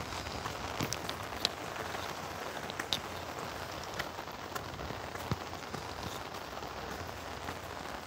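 Steady rain hissing, with irregular sharp ticks of drops striking the umbrella held just above the phone.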